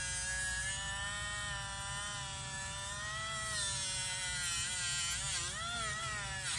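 Handheld rotary tool spinning a polishing pad against a small metal trigger part: a steady high whine whose pitch wavers and dips in the last second or so as the pad is pressed into the part.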